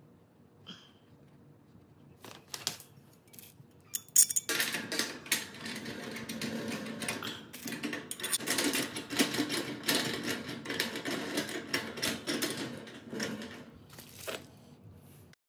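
Metal hinge hardware being bolted onto a grill's steel hood: a few separate clicks, then a long dense run of metallic clicking and rattling from bolts and nuts being fastened. It cuts off abruptly near the end.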